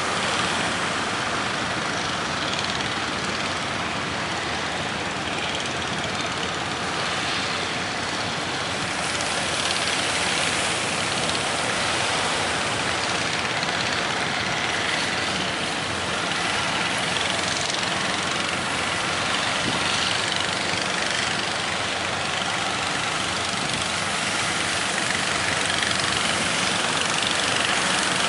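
Boat engine running steadily under way, mixed with the rush of strong wind and water.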